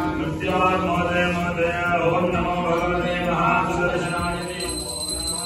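Priest chanting puja mantras in a continuous recitation over a steady low tone. A steady high ringing tone comes in near the end.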